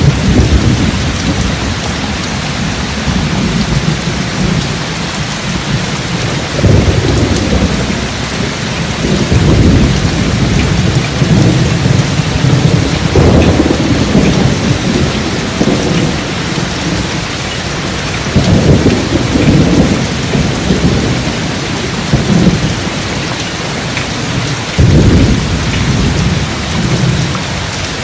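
Steady rain with deep, rolling thunder rumbles that swell and fade about five times, each lasting a second or two.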